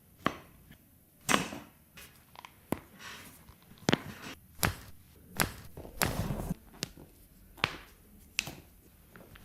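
Chiropractic manipulation of a patient's body: about ten sharp cracks and slaps at irregular intervals, roughly one a second, with a short rubbing sound about six seconds in.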